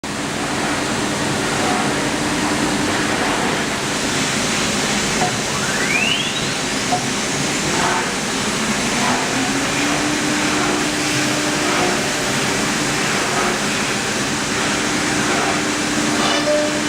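Wood CNC router running with a steady hiss and hum. About five seconds in, a whine rises sharply in pitch as the spindle spins up, then settles into a steady tone.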